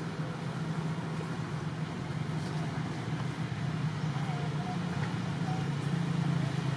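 A steady low mechanical hum, like an engine or road traffic running, with a few faint short squeaks about four to five seconds in.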